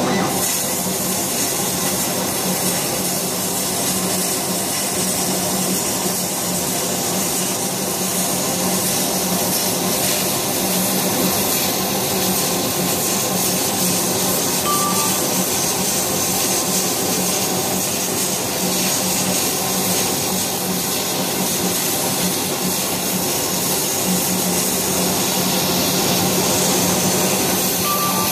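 High-speed laser cutter at work, its head darting about to cut a pattern of small shapes into paper: a steady hissing hum with a fast, fluttering mechanical texture from the machine's motion system and fans.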